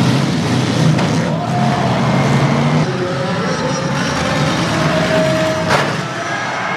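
Demolition derby cars' engines running and revving on a dirt track. A single sharp crash of a car-to-car collision comes near the end.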